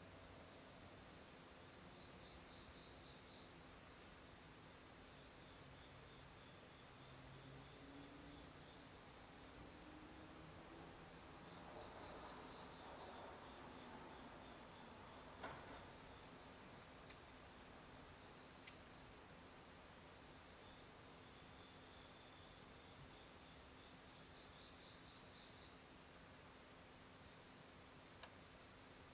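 Faint chorus of night insects trilling without a break, a steady high ringing with a faster pulsing band just below it. A single soft click sounds about halfway through.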